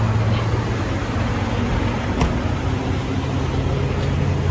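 Semi truck's diesel engine idling steadily, a low hum, with one sharp click about two seconds in.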